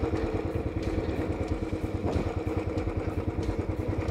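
Royal Enfield Classic 500's air-cooled single-cylinder engine running at low revs, with a quick, even pulse and a few light clicks.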